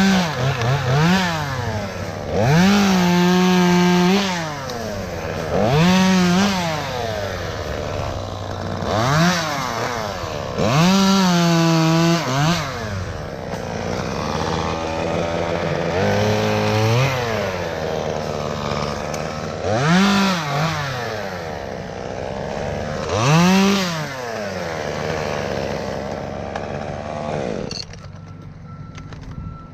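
Petrol chainsaw revving up and dropping back about eight times, held at full throttle for a second or more at a few points. It cuts off a couple of seconds before the end.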